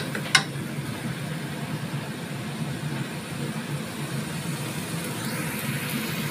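Ground chili and shallot spice paste frying in a stainless steel wok over a steady low hum. A wooden spatula clacks against the wok twice at the very start.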